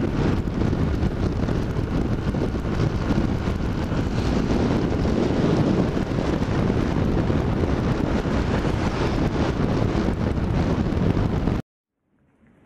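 Wind rushing over the microphone of a moving moped, with the small moped engine running under it. The noise cuts off suddenly about a second before the end.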